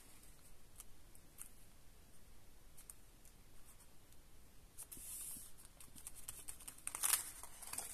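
Cardstock being handled and smoothed down by hand: faint rubbing and rustling of paper with a few light taps, and a louder rustle near the end.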